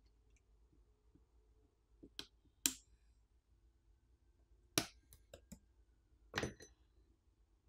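Small tools and phone parts clicking and clinking as a smartphone is taken apart: a few sharp clicks about two seconds in, a louder run of clicks near the middle, and another near the end.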